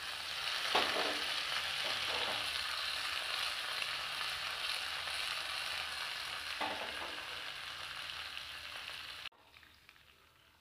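Hot oil sizzling loudly in a small steel tempering pan as freshly chopped curry leaves fry with mustard seeds, urad dal and chana dal, with a few sharper crackles. The sizzle cuts off suddenly about nine seconds in.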